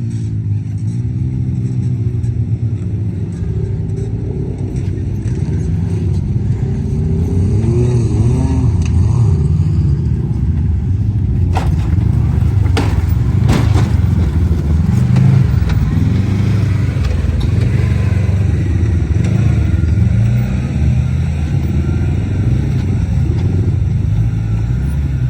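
Side-by-side UTV engine running and revving up and down over rough off-road trail, with a few sharp knocks about 12 and 13.5 seconds in.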